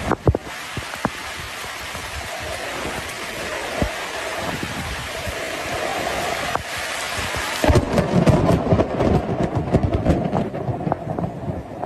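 Heavy rain pouring steadily during a thunderstorm, with a few sharp cracks, and a louder, choppy low rumble of thunder from about eight seconds in.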